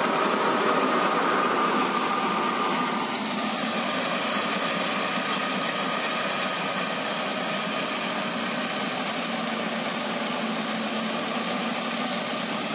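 New Holland 5500 turbo tractor and the straw reaper it drives, both running steadily at work, a dense mechanical drone. A higher steady tone fades out about three seconds in.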